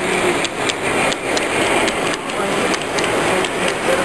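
Crowd chatter in a large hall over a G-scale model train rolling along the track, its wheels clicking over the rail joints about twice a second.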